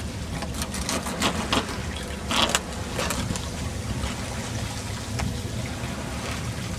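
Steady rumble of wind and water on a sailboat under way, with a few brief scrapes and clicks over it.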